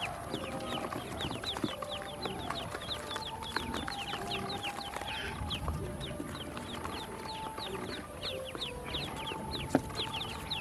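Newly hatched ducklings peeping continuously, many short high peeps sliding downward and overlapping, several a second. One sharp tap near the end.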